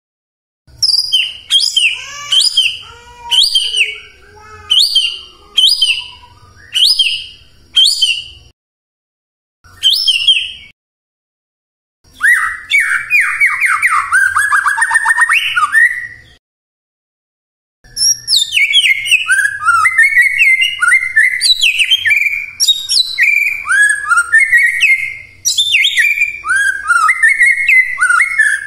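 White-rumped shama singing. It opens with a run of repeated sharp whistled notes and a lone note after a pause. Near the middle comes a fast rattling trill, and the rest is a long stream of varied rapid whistles and chatter.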